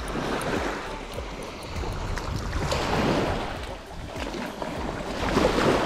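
Shallow surf washing and sloshing at the water's edge, swelling louder about three seconds in and again near the end, with wind rumbling on the microphone.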